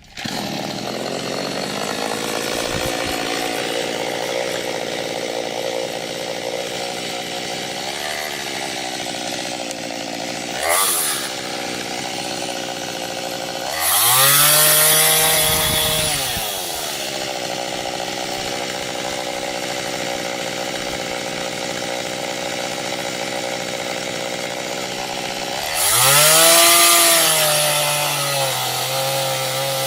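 Small chainsaw with a 15-inch bar running at idle, revved briefly about a third of the way in and then twice up to high revs for two or three seconds each, the pitch rising and falling back to idle.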